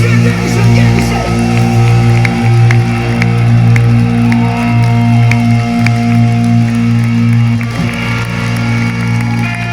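Live rock band with loud distorted electric guitars, holding a steady sustained chord, while the crowd cheers and whoops.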